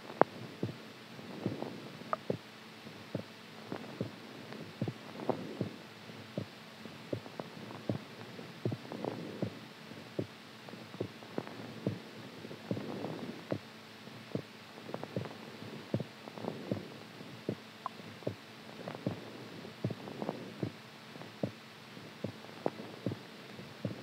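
Heartbeat sound: soft thumps at about two a second, over slow swells like breathing about every four seconds and a faint steady hum.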